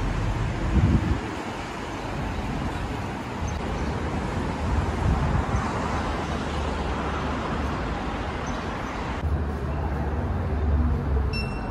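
City street ambience: a steady wash of road traffic noise. About nine seconds in it changes abruptly to a duller indoor room sound with a low rumble.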